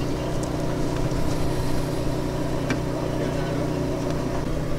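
Steady low hum of a running engine, even and unchanging.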